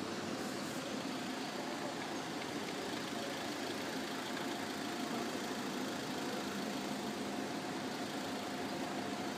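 Steady mechanical drone like an engine or motor running without a break, with a faint thin whine held through the later part.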